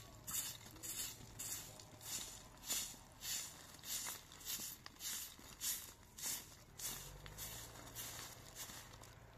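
Steady rhythmic crunching footsteps, about three steps every two seconds.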